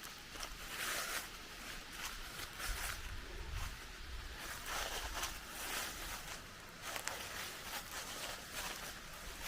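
A hiker's footsteps on a dirt road, short scuffs about once a second, with a brief low rumble of wind on the microphone partway through.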